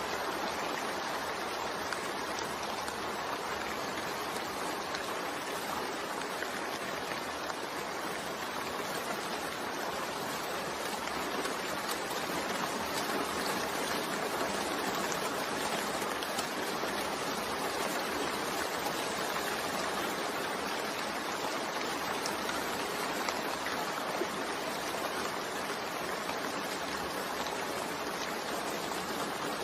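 Steady, continuous rain sound blended with white noise, an even hiss without breaks.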